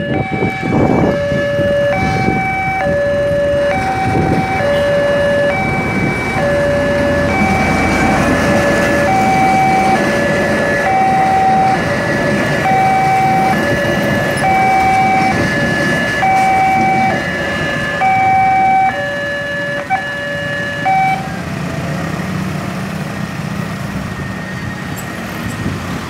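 Emergency vehicle's two-tone siren, a high and a low note taking turns about once a second over a steady traffic rumble. It stops about four-fifths of the way through, leaving the rumble.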